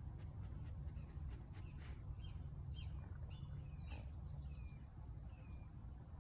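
Faint bird chirps, short and high, several of them falling in pitch in the second half, over a steady low hum.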